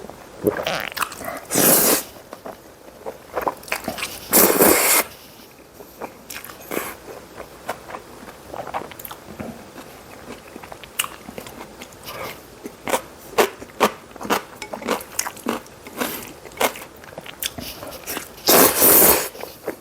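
Close-miked eating: chewing and wet mouth clicks at an irregular pace. Three louder, longer noisy bursts come about two seconds in, about four and a half seconds in, and near the end.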